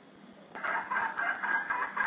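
Red junglefowl calling loudly in a run of broken, squawking calls that start about half a second in, with several sharp clicks mixed in.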